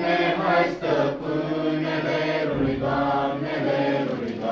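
Group of children and teenagers singing a Romanian Christmas carol (colindă) together in unison, unaccompanied, in long held notes.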